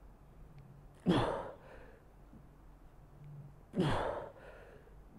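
A man's forceful exhalations of effort on each squat rep: two short voiced breaths, each falling in pitch, about three seconds apart.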